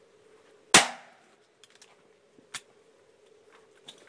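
A shotgun fires once, loud and sharp, a little under a second in, and a fainter report follows about two seconds later, with a few light clicks between.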